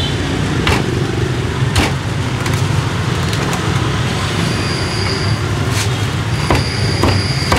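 Steady road-traffic rumble, with about five sharp, irregularly spaced knocks of a cleaver chopping roast pork on a wooden board.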